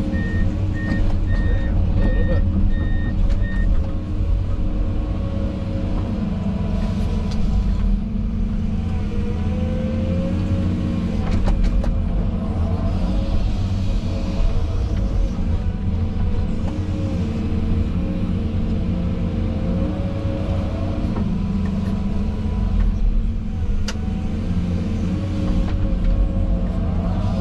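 A tractor engine running steadily as the machine works, its engine note shifting a little up and down. Near the start there is a short run of evenly spaced high-pitched electronic beeps, lasting about three and a half seconds.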